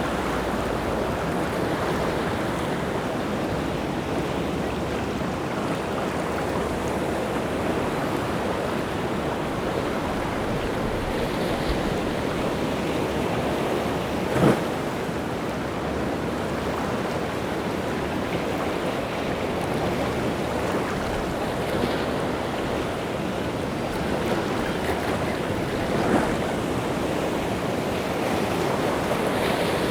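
Rough sea surf breaking and washing ashore in a continuous churning rush, with a sharper, louder wave crash about halfway through and a couple of smaller ones later.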